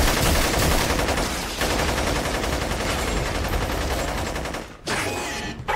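Sustained rapid automatic gunfire, a dense continuous rattle of shots, as a battle sound effect. It breaks off near the end, followed by a shorter, quieter stretch.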